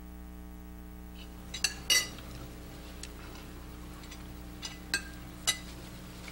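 Forks and cutlery clinking against plates during a meal: a handful of short, sharp clinks, the loudest about two seconds in, over a steady low hum.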